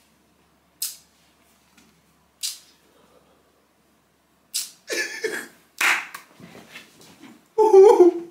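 Short, breathy puffs of stifled laughter from a person, a couple of seconds apart at first and then coming closer together, with a brief louder voiced sound just before the end.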